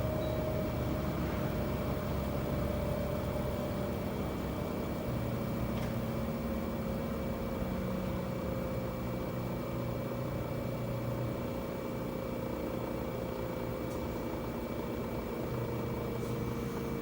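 Outdoor unit of a Panasonic LX-series air conditioner running with a steady mechanical hum and a whine that slowly drops in pitch, plus a thin steady high tone. This is the abnormal noise the unit has made since it was bought new.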